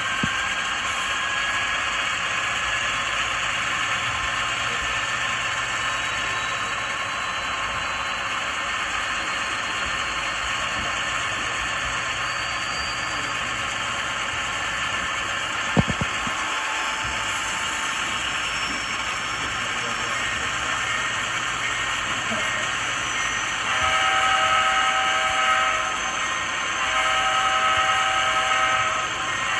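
Model locomotive sound decoder playing a GE 7FDL16 diesel prime mover running steadily with turbo whine, through the model's small onboard speaker. There is a single sharp click about halfway. Near the end a five-chime K5LA air horn sounds two long blasts.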